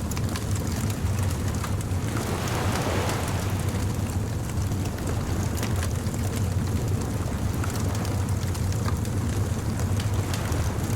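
Beach bonfire crackling over a steady low rumble of surf, with a wave washing in about two seconds in.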